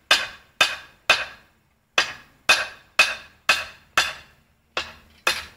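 Repeated sharp metallic clanks, about two a second with one brief gap partway through, each ringing out briefly.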